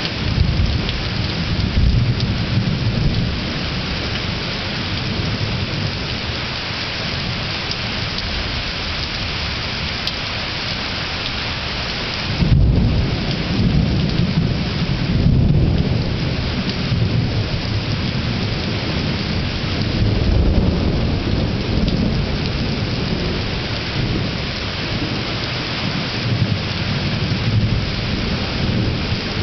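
Thunderstorm: steady rain with repeated rolls of thunder rumbling. The loudest thunder breaks in sharply a little before halfway through and rumbles on for several seconds, with weaker rolls before and after.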